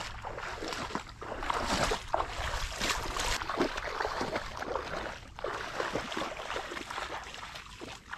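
Footsteps wading through shallow swamp water and mud, with irregular splashing and sloshing as each leg moves.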